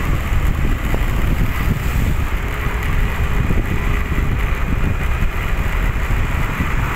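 Steady, loud ride noise from a vehicle moving along a road: wind buffeting the microphone, with engine and tyre noise underneath.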